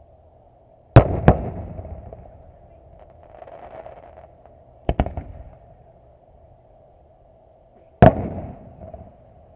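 Aerial firework shells going off: sharp bangs about a second in, near the middle and near the end, the first two coming as close pairs, each followed by an echo that dies away.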